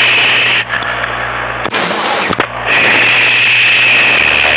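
CB radio receiver hissing with static between transmissions. The hiss thins out about half a second in, with a sharp click near the middle, then comes back steady.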